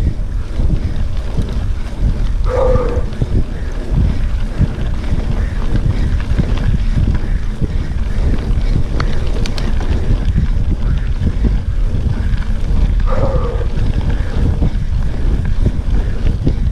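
Wind buffeting the microphone of a camera on a mountain bike riding fast over a sandy dirt road, over the rumble and rattle of the tyres and bike on the rough ground. Two brief higher-pitched sounds break through, about ten seconds apart.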